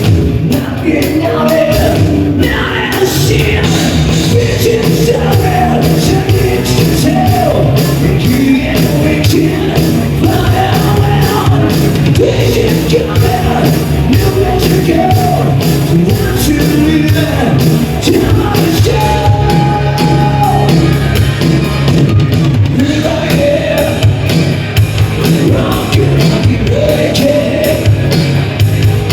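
Live rock band playing loud, with a wavering lead melody over a steady low bass layer.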